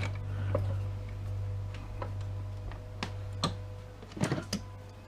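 A handful of light, irregular metal clicks and taps as small parts of a dismantled electrical safety switch are worked with hand tools, a little cluster of them about four seconds in, over a steady low hum.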